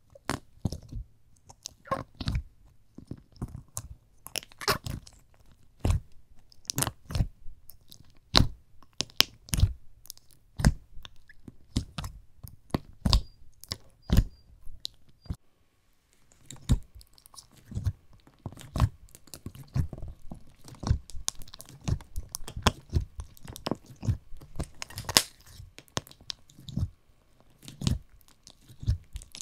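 Thick slime with crunchy toppings being pressed and poked by fingers in its tub. It makes an irregular run of sharp pops and crunchy clicks, about one or two a second, with a short lull about halfway through.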